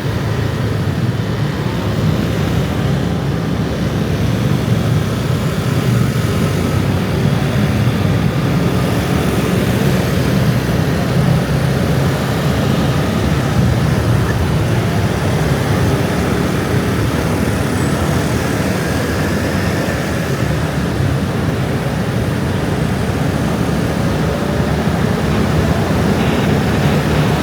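Dense motor-scooter traffic: the steady, loud drone of many small engines passing together, with no single vehicle standing out.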